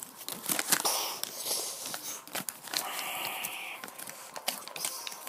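Breathy, hissing mouth-made fight sound effects over clicks, knocks and rustles of plastic action figures being pushed together over a blanket, with a longer hiss about three seconds in.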